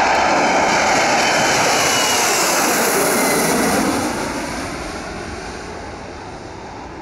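Embraer E-Jet airliner's twin turbofans at takeoff thrust as it climbs out, a loud jet roar with a sweep sliding down in pitch. From about four seconds in the roar fades steadily as the aircraft draws away.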